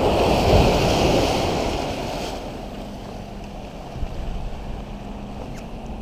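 Ocean surf washing over lava rocks, loudest for the first two seconds and then falling away, with wind on the microphone.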